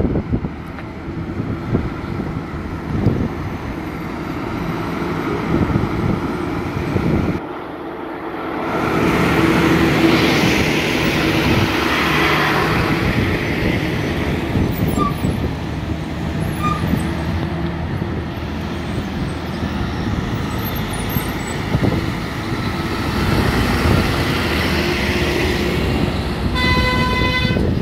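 Heavy goods truck's diesel engine running as it passes on a hill road, swelling louder for a few seconds near the middle, with wind noise. Near the end a vehicle horn sounds once for about a second.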